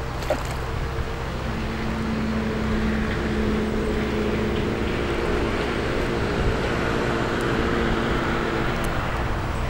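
Steady low mechanical hum, as of a distant engine, with several held tones and a constant deeper rumble underneath.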